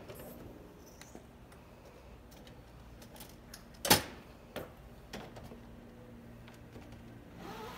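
Motorhome entry door being opened and handled: scattered light clicks, a single sharp knock about four seconds in, then a few lighter taps as the shade in the door's window is reached for. A faint steady low hum runs underneath.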